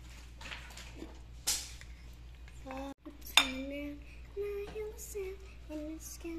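Dishes and cutlery clinking and scraping during a meal, with a sharp clink about a second and a half in and a louder one about three and a half seconds in. From about halfway, someone hums a string of short held notes.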